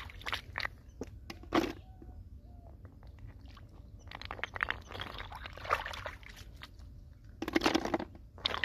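Hands scooping and stirring muddy water in a shallow pool while picking out large snails: water splashing, sloshing and dripping in several spells, the loudest near the end, with scattered short clicks.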